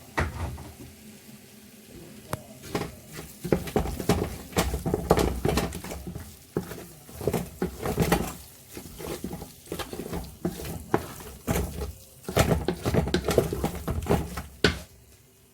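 Kitchen utensils knocking and scraping against a cooking pot in quick, irregular clicks and clatters, as the soup is stirred and seasoned.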